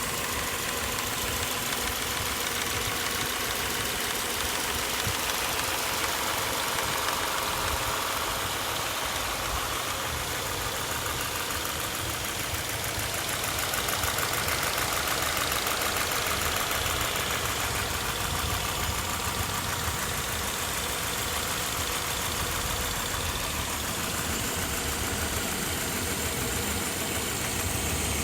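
Subaru Outback's 2.5-litre FB25 flat-four engine running steadily with a tick, or knock: the fault noise that the owner is documenting.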